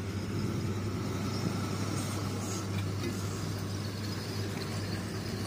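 A vehicle engine running steadily, a constant low drone that neither rises nor falls.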